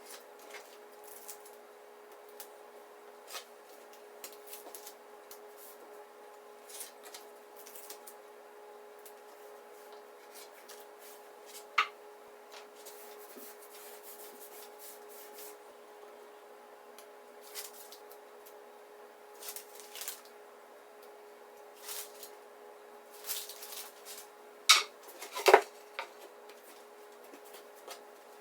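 Scattered small rustles, scrapes and clicks of double-sided tape being cut and peeled from its backing and plywood boards being handled and pressed down, over a steady faint hum. One sharp click comes about twelve seconds in, and the loudest handling noises come near the end.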